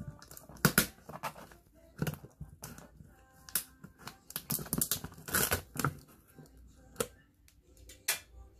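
Box cutter blade slicing through packing tape on a cardboard box: a series of short, sharp scraping and tearing strokes at uneven intervals, with faint background music underneath.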